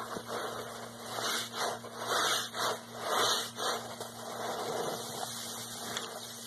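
Large sponge soaked in sudsy pine-cleaner water, squeezed and kneaded by hand: a string of wet squelches, loudest through the middle, easing into a softer, steadier squishing near the end.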